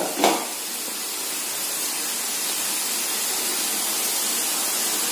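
Raw jackfruit slices deep-frying in hot oil, a steady, even sizzling hiss from the bubbling oil in the wok.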